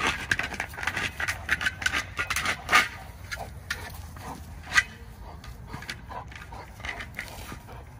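A large American Bully dog playing with a ball on dry grass: irregular scuffing and rustling of paws and ball, with the dog's breathing. Sharp knocks from the ball being pushed and bumped, loudest about three and five seconds in.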